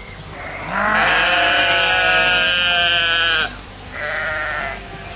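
Sheep bleating: one long, loud bleat of about three seconds with a wavering pitch, then a shorter one.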